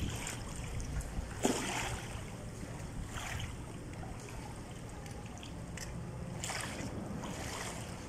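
Small waves lapping and splashing at the water's edge, a few brief splashes every second or two, over wind rumbling on the microphone.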